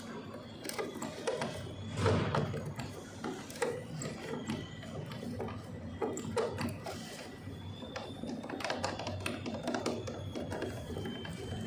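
Irregular clicks, taps and knocks of small parts and tools being handled while an appliance is taken apart, the loudest knock about two seconds in.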